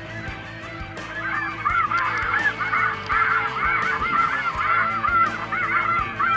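A flock of light geese (snow geese) calling, with many overlapping high honks that build up about a second in and carry on densely.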